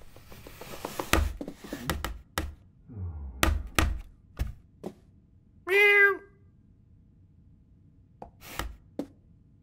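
Cartoon cat foley: a run of sharp knocks and thuds as the cat bangs its food bowl against the door. A single meow comes about six seconds in, and two more knocks follow near the end.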